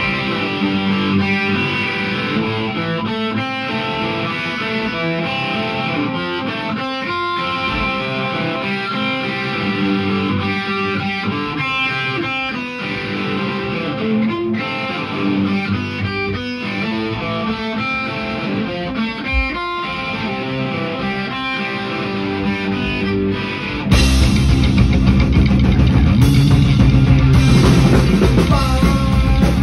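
Electric guitar played alone through a Marshall amplifier for about twenty-four seconds, then drums and bass guitar come in together and the full rock band plays, suddenly louder.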